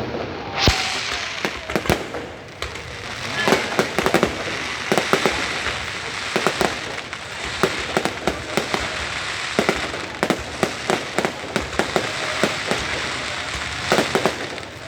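Fireworks display: many sharp bangs and crackles in quick succession over a steady hiss, starting a little under a second in.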